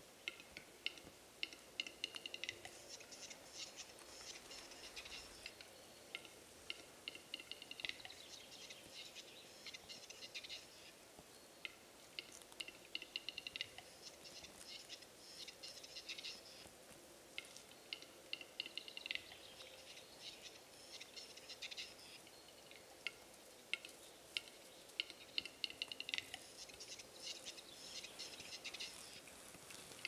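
Displaying male western capercaillie's lek song: a run of dry clicks in phrases that recur every few seconds, each phrase ending in a short scraping rattle.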